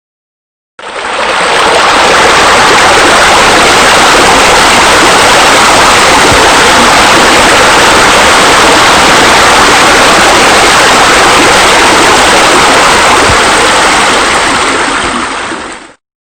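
Loud, steady rush of running water, fading in about a second in and cutting off sharply near the end.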